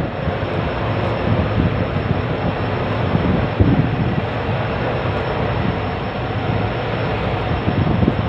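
Steady rushing noise of a rainstorm with wind at sea, with a low rumble underneath.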